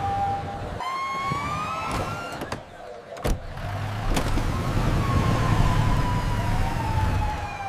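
Fire truck siren wailing: a pitch that rises for about a second, then falls slowly over the last few seconds, over a low rumble. A few sharp clicks fall between the rise and the fall.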